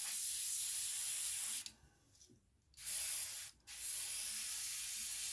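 Airbrush hissing as it sprays paint onto a crankbait, in three bursts of spray with short stops about one and a half and three and a half seconds in.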